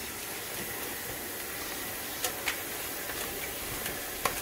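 A few light clicks and crackles from chopped cabbage being handled in a bowl, the last near the end the sharpest, over a steady hiss.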